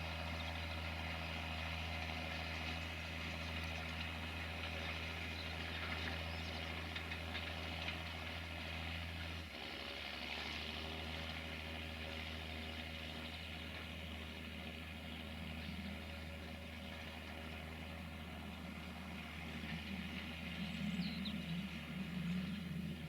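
John Deere 6520 tractor's six-cylinder diesel engine running steadily. Its note changes abruptly about ten seconds in, and the sound grows louder and rougher near the end.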